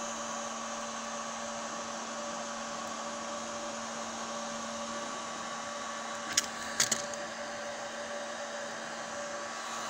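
Heat gun blowing steadily, a hot-air hum used to soften the bitumen sound-deadening mat. A few sharp clicks come about six and a half to seven seconds in.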